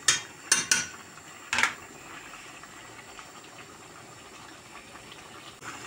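A metal spoon knocks against the stainless steel pot four times in the first couple of seconds, then a steady hiss from the pot of tomato sauce boiling on the gas stove.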